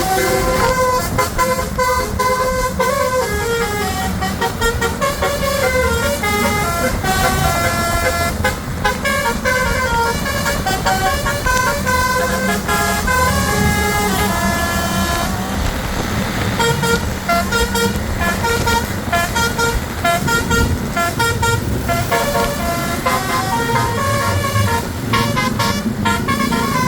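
Telolet basuri multi-tone musical horn on the MSM Asyrof bus playing a melody of short stepped notes, several a second, over a steady low rumble of engine and traffic.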